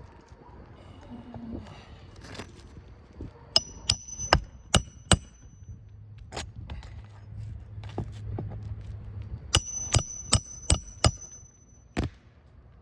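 Hand hammer driving roofing nails into shingles: two quick runs of about five ringing metal blows each, then a single blow near the end.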